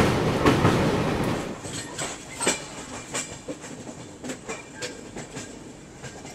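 Passenger train wheels on the track, heard from an open coach door: a loud rumble of running at speed that drops, about a second and a half in, to a quieter clickety-clack of wheels knocking over rail joints and points as the train rolls through a station yard.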